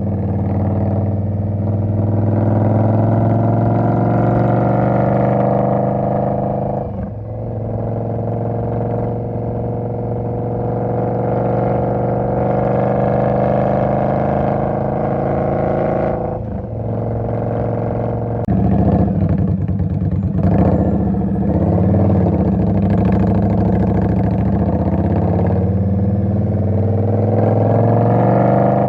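Indian Scout motorcycle's V-twin engine running under way, its note slowly rising. The sound dips briefly twice and changes character about two-thirds of the way through.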